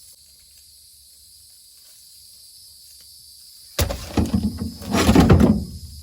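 A steady high drone of insects such as crickets. About four seconds in, a loud burst of close-up noise breaks in and lasts about two seconds.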